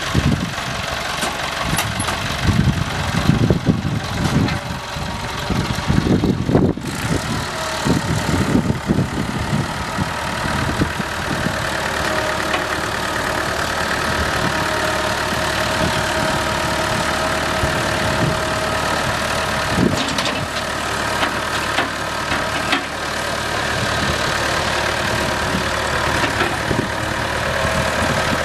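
Case 930 Comfort King tractor engine idling, with uneven low rumbling over the first several seconds and running steadily from about eight seconds in.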